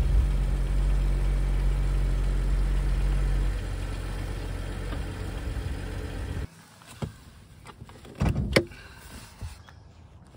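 BMW 535i's N55 turbocharged inline-six idling with a steady low hum. The hum drops about three and a half seconds in and cuts off abruptly about six and a half seconds in, followed by a few short knocks, the loudest about eight seconds in.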